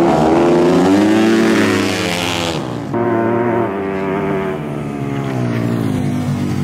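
Four-stroke flat-track dirt bike engines revving and easing off through a slide, their pitch rising and falling. The sound changes abruptly just before three seconds in, then goes on with another engine.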